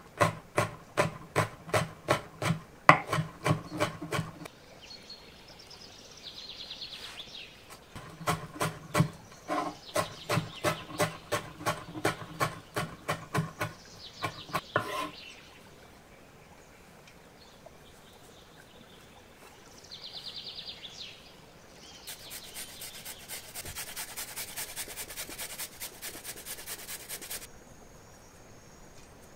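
Rapid, regular strokes of kitchen food preparation on a wooden surface, about five a second, in two runs: one over the first four seconds and another from about eight to fifteen seconds in. Later comes a few seconds of fine, fast rattling.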